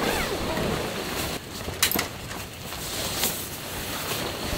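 Strong wind buffeting a camping tent: a steady rushing noise with the tent fabric flapping, and one sharp click a little under two seconds in.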